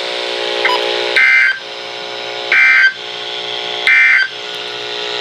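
NOAA Weather Radio EAS/SAME digital data bursts, the end-of-message code after a warning: three short, shrill warbling tone bursts about 1.4 s apart, with a steady low hum between them.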